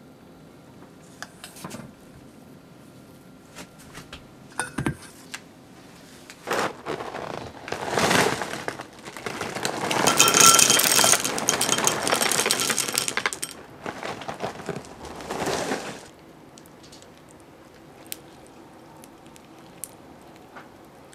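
Kellogg's Froot Loops poured from the box into a small glass bowl: a dry rattling clatter of loops hitting the glass and each other, starting about six seconds in, loudest in the middle and stopping about ten seconds later. Before it, a few light taps and clicks.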